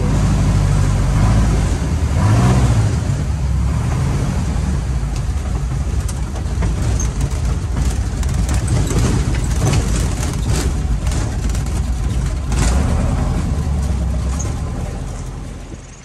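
Light bush plane's piston engine and propeller running loud and steady, heard from inside the cabin during a landing on rough tundra, with knocks and rattles from the airframe as it touches down and rolls. The engine noise dies away near the end.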